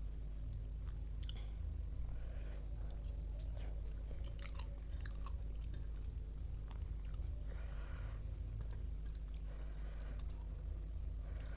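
A person chewing and eating mouthfuls of rice and curry, with small wet mouth clicks and short soft breaths scattered throughout, over a steady low hum.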